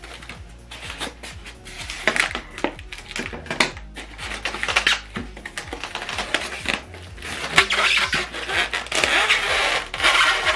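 Unboxing handling noise: a cardboard sheet and a plastic-wrapped soundbar scraping and rubbing against a styrofoam tray, with irregular scuffs and clicks and a longer stretch of plastic rustling from about seven to ten seconds in.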